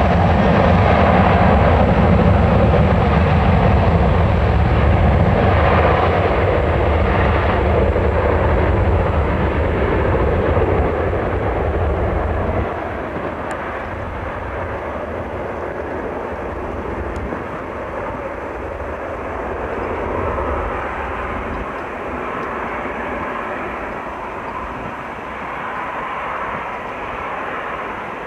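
Boeing 737-800's CFM56-7B turbofan engines running loud and close, a steady rumbling roar. About halfway through it drops suddenly to a quieter, more distant jet roar as the airliner rolls away down the runway for takeoff.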